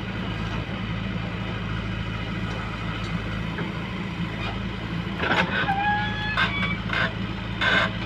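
Diesel engine of a JCB 3DX backhoe loader running steadily under digging and loading work. From about five seconds in, several sharp knocks and short held tones join it.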